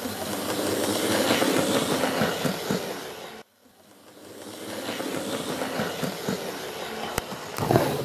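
HO-scale model EH10 electric locomotive and train running on layout track: a steady rolling rattle of metal wheels on rail. It cuts off suddenly about three and a half seconds in, then swells back up as the train approaches, with a couple of sharp clicks near the end.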